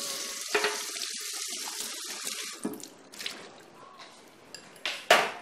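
Kitchen tap running into a sink while drinking glasses are rinsed under it. The water is louder for the first two to three seconds, then softer, and a few sharp clinks sound as the glasses are handled, the loudest near the end.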